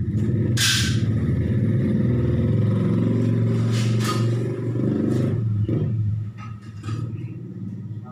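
An engine running steadily, then fading away after about six seconds, with two short sharp noises over it, about one second and four seconds in.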